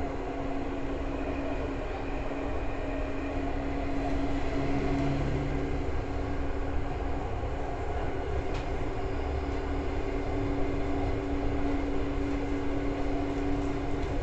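Interior running sound of a Seibu 2000 series electric train car, heard from above its underfloor line breaker. A steady rumble of wheels on rail carries a few steady electrical hums, and it grows slightly louder about four seconds in.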